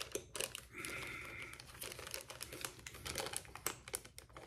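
Metal surgical instruments being handled and opened, giving scattered irregular clicks and light rattles.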